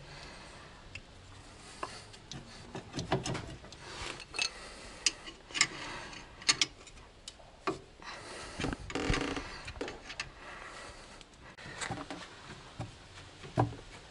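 Irregular knocks, clicks and rubbing from a Skoda Superb's front strut being rocked and worked into its steering knuckle.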